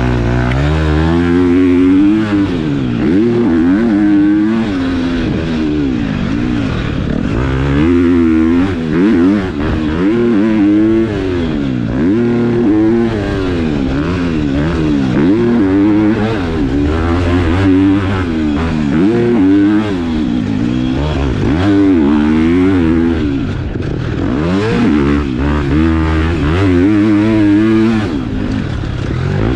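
KTM single-cylinder four-stroke motocross bike being ridden hard, its engine revving up and down over and over, the pitch climbing and dropping every second or two.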